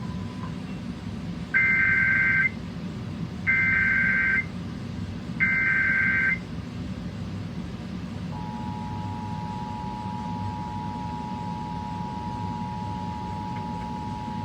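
Emergency Alert System tones played through a TV set's speaker: three one-second bursts of the screechy digital SAME header data, about two seconds apart, then from about eight seconds in the steady two-tone EAS attention signal, which holds. A low room hum runs underneath.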